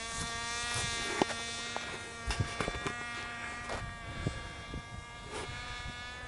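Radio-controlled model airplane's engine buzzing at a steady pitch in flight, with a few scattered clicks and knocks.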